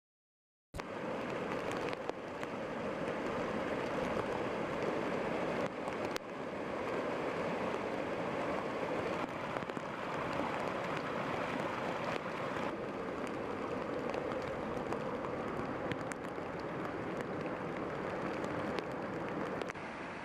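Heavy rain and rushing floodwater: a steady, even wash of water noise that starts abruptly just under a second in and shifts slightly in tone a few times.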